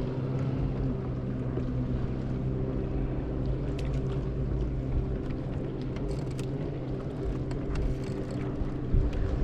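Boat's outboard motor running at a steady, unchanging pitch.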